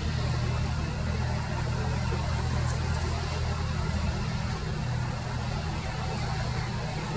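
Boeing 787 airliner's jet engines on approach: a steady low rumble with an even hiss above it.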